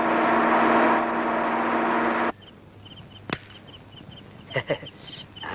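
A lorry's engine drone and road noise growing louder as it approaches, then cut off sharply about two seconds in. After it come crickets chirping in quick short trills, with a sharp click and a few soft knocks.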